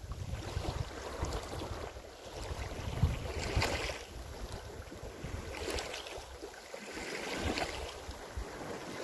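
Wind buffeting the microphone in gusts, with small lake waves washing onto a pebble shore now and then.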